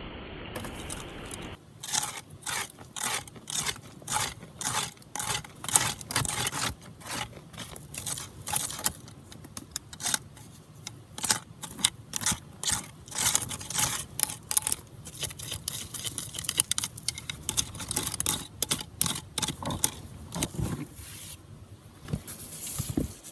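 A creek rushing over rocks for about the first second and a half. Then a hand tool scrapes and digs into packed gravel and stones, one or two strokes a second, with stones clinking, as gold-bearing material is dug out from behind rocks and deeper down.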